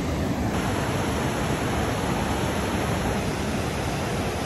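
Steady, even rush of water pouring over the rocks of the Falls of Dochart, a river waterfall and rapids.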